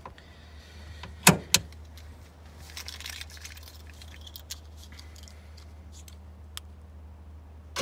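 A car boot latch clicking: two sharp clicks close together about a second in, then light rattling and small clicks of a key fob, and a loud clunk at the very end as the latch fires from the aftermarket remote, working through the newly added relay.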